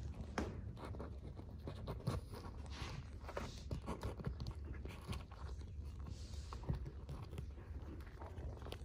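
Kittens' claws scratching and scrabbling on a fabric pet playpen: faint, scattered scratches and clicks.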